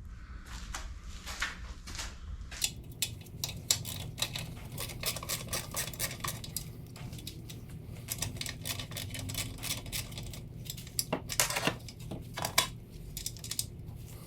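Metal hand tools and parts clinking, tapping and rattling in a busy run of sharp clicks over a low steady shop hum.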